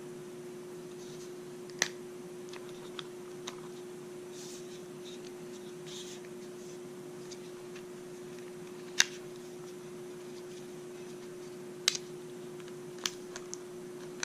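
Plastic camera clamp being handled and squeezed: a few sharp, widely spaced clicks with faint rustling in between, over a steady low hum.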